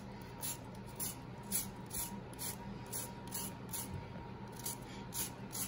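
Lime rind being zested on a microplane rasp grater: soft, rhythmic scraping strokes about twice a second.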